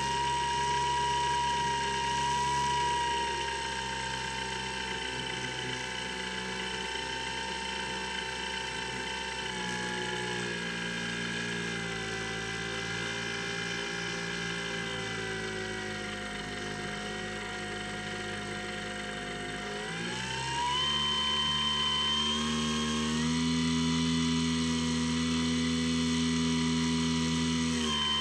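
Electric motor and propeller of a Skywalker X7 flying-wing model plane running in flight, a steady whine with several tones. The pitch sinks slowly, then climbs quickly about twenty seconds in and holds higher, as the throttle is opened.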